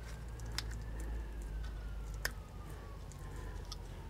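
A few faint, sharp metal clicks as a roller-chain connecting link and its pin are worked into place by hand, over a steady low hum. A faint thin tone drifts slightly up and then slowly down in pitch.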